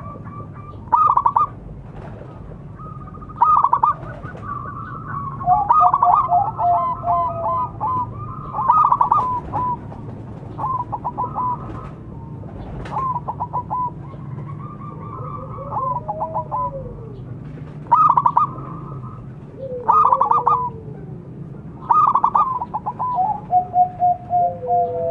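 Zebra dove (perkutut) cooing: about ten bursts of rapid staccato cooing notes, each a second or so long and coming every two to three seconds, with lower drawn-out sliding notes overlapping at times.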